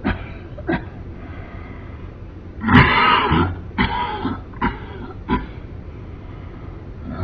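A man coughing in harsh, throaty fits: two short coughs at the start, a longer, louder bout about three seconds in, then three more short coughs.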